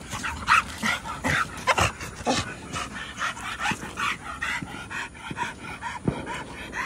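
A dog whining and yipping in short, quick bursts, with panting between them.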